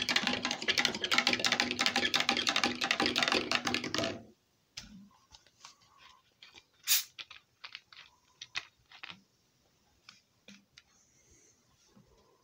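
Metal spoon stirring a drink briskly in a tall tumbler, clinking rapidly against the sides for about four seconds, then stopping. After that come a few scattered light taps and clicks.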